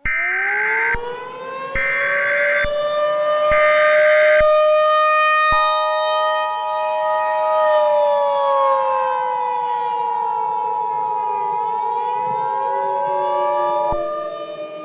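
Emergency Alert System tones over a warning siren. Three short bursts of SAME header data tones sound in the first four seconds or so, then the two-tone EAS attention signal holds from about five seconds in until near the end. Underneath, the siren winds up at the start, falls in pitch in the middle and rises again.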